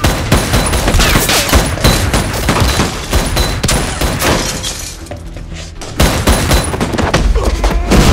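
Rapid, dense run of hard punch and impact sound effects in a fist fight, with smashing and breaking debris in the middle; the hits ease off briefly and resume loudly about six seconds in.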